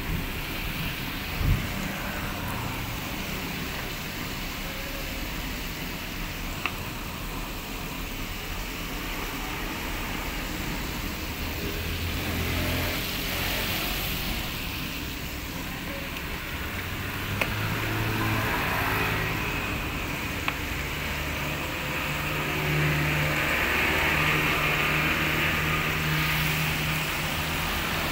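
Chicken pieces deep-frying in hot oil in a wok, a steady sizzle over a constant low background rumble, with a low hum coming in during the second half.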